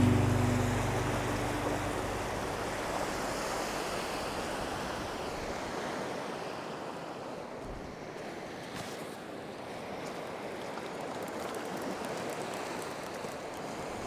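Sea waves washing ashore, a steady rushing wash that dips a little in the middle and builds again. The tail of background music fades out at the very start.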